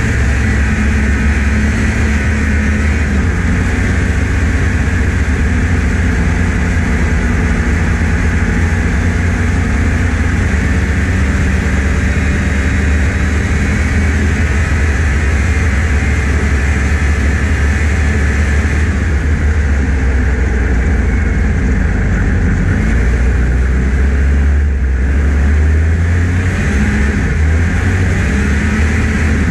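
1989 Yamaha Phazer snowmobile's fan-cooled two-stroke twin running steadily under way, heard close from the hood, with a brief change in tone about 25 seconds in.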